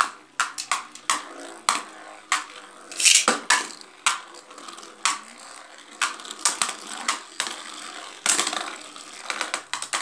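Two Beyblade spinning tops, Victory Valtraek and Xeno Xcalius, spinning and clashing in a plastic basin: a fast, irregular run of sharp plastic-and-metal clacks as they collide and strike the basin wall, with a faint whir of spinning between hits. Longer, noisier clatters come about three seconds in and again about eight seconds in.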